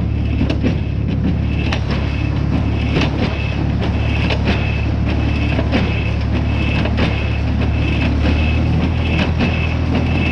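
Tractor-driven small square baler running, its plunger and mechanism clattering in a steady rhythm of several knocks a second over the even drone of the tractor engine.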